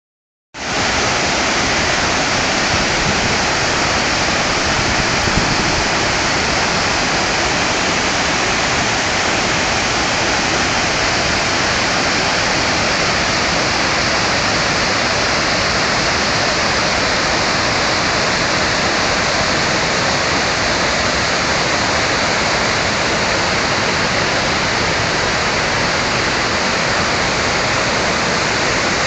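Waterfall's water rushing and splashing, a loud steady roar of falling water that starts about half a second in.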